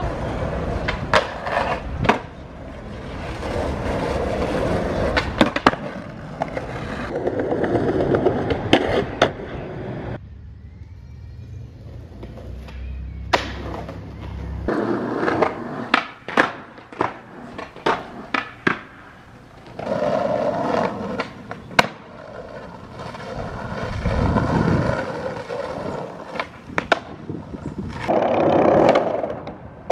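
Skateboard wheels rolling over concrete and asphalt, broken by many sharp clacks of the board popping and landing, in a string of separate runs with a quieter lull around the middle.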